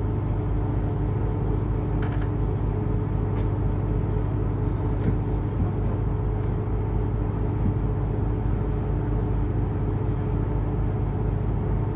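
Excursion boat's engine running steadily under way, a low, even drone with a faint steady hum above it.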